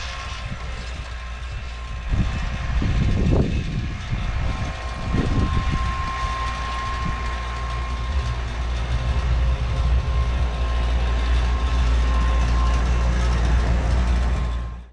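A motor running steadily, a low rumble with a thin constant whine over it, swelling louder a few times in the first five seconds.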